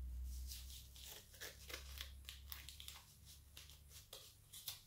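Scissors snipping and plastic packaging crinkling as a tinsel garland is cut out of its wrapping: a quick run of small crisp cuts and rustles. A low hum underneath stops about four seconds in.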